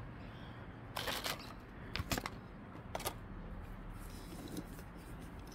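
A few light clicks and rattles, about one, two and three seconds in, as a small diecast model car is handled on its display stand.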